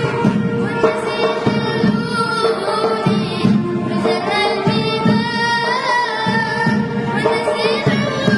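Choir singing a Tunisian Arabic song with instrumental accompaniment over a steady drum beat.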